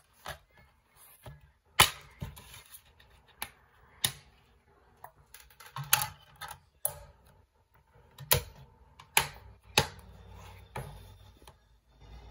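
Hard plastic clicks and snaps of a DVD case being opened, the disc unclipped from its hub, and a top-loading DVD player's lid being handled and shut. Toward the end a faint low hum as the player begins loading the disc.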